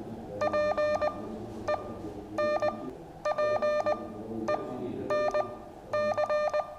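Morse code (CW) practice tone sending one word: a single buzzy pitch keyed on and off in short dots and longer dashes, grouped into letters with short pauses between them.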